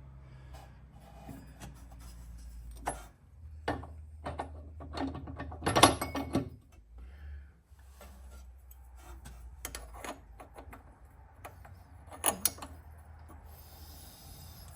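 Metal parts of a mower's blade-belt tensioner clicking and knocking as they are handled and fitted by hand: scattered clicks, a cluster of louder knocks about six seconds in, and two more near the twelve-second mark.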